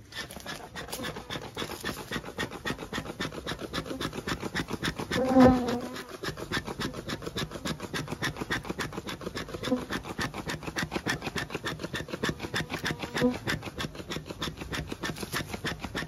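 Honeybees buzzing at a hive that is being smoked, under a fast, even rasping rub. About five seconds in, a brief, louder humming tone stands out.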